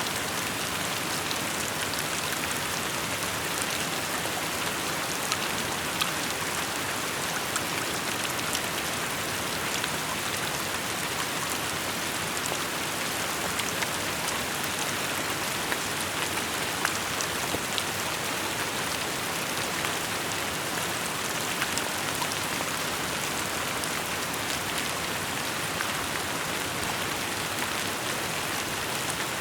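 Steady rainfall: an even hiss of rain with scattered individual drops ticking on nearby surfaces.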